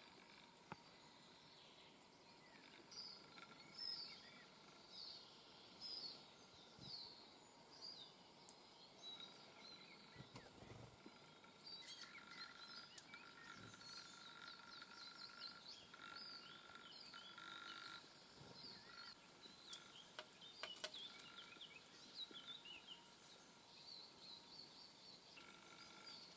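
Small songbirds chirping faintly, with many short high calls in quick runs. A faint steady tone comes and goes under them.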